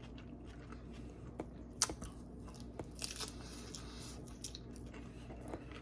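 Close-up eating sounds from chewing and biting a flour tortilla wrap with ham and lettuce: wet mouth clicks and smacks with a few short crunches.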